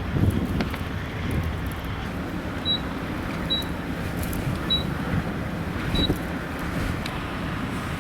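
A vehicle's steady low road rumble with wind noise. Four short, high-pitched beeps sound between about three and six seconds in.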